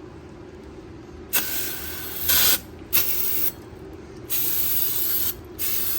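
Aerosol can of CRC brake cleaner spraying onto the brake assembly to wash it down, in four hissing bursts of about half a second to a second each, beginning about a second in.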